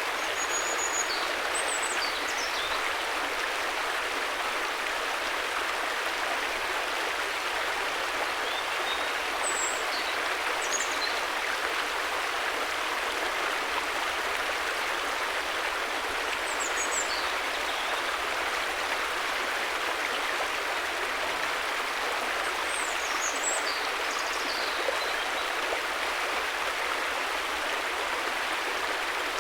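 River water rushing steadily, with a bird chirping faintly in short high calls about four times.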